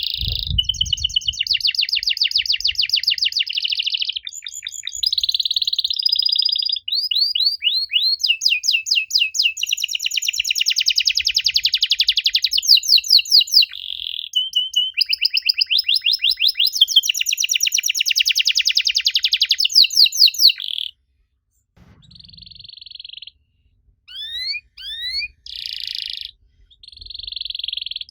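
Domestic canary singing a long, dense song of fast trills and rapid rising chirps. Near the end it breaks off briefly and resumes in short phrases.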